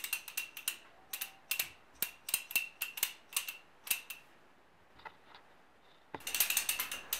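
Handmade walnut baby rattle shaken by hand, its loose maple and walnut pieces clacking against the wooden frame in a quick run of clicks. The clicking pauses for about two seconds midway, then comes back as a denser rattle near the end.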